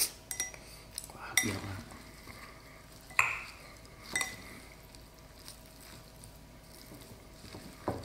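Bamboo chopsticks tossing dressed rice vermicelli, lettuce and grilled beef in a ceramic bowl. A wet rustling and squishing is broken by several sharp clicks of the chopsticks against the bowl.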